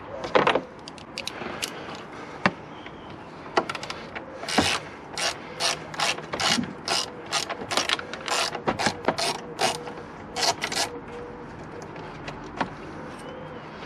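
Hand ratchet clicking in short back-and-forth strokes as a T25 Torx screw is backed out, about two clicks a second for several seconds, with a few single clicks before the run.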